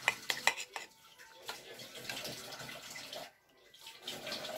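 A metal spoon and fork clinking against a ceramic bowl a few times near the start, then the wet, sticky sound of sauced instant ramen noodles being tossed and stirred, with a brief pause about three and a half seconds in.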